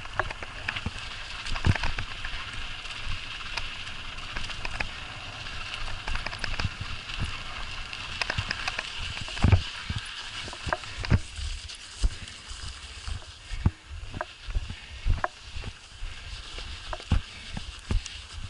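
Mountain bike moving over packed snow: a steady hiss from the knobby tyres, with frequent irregular knocks and rattles as the bike jolts over bumps, the knocks standing out more in the second half.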